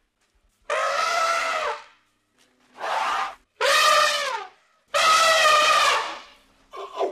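Elephant trumpeting: four long calls of about a second each with short gaps between them, and another starting right at the end.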